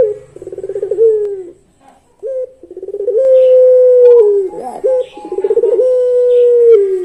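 Puter pelung, a long-voiced domestic collared dove (Barbary dove), cooing. About three coo phrases, each a short opening note and a rapid rolling trill, then a long drawn-out note that drops in pitch at its end.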